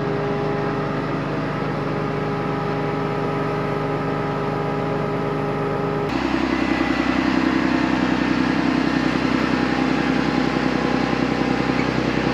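Tractor's diesel engine idling steadily. Its note changes abruptly about six seconds in and takes on a faster pulse.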